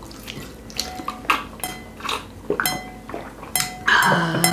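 Tableware clinking during a meal: several separate clicks of metal utensils and bowls against dishes, some with a short ringing tone. Near the end comes a louder burst with a voice-like tone in it.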